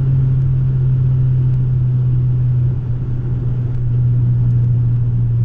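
Cabin sound of a 1990 Honda Civic's D16 four-cylinder cruising with only a Vibrant aftermarket muffler and no resonator: a steady deep, bassy exhaust drone over road noise. The drone's pitch drops slightly about three seconds in.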